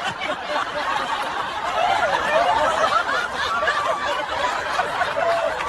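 Several people laughing and chuckling at once.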